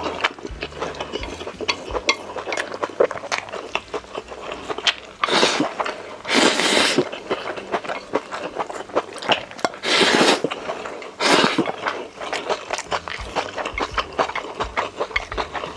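Close-miked eating: chewing with frequent small clicks of utensils against dishes. There are four louder, rougher bursts, each about a second long or less, in the middle stretch.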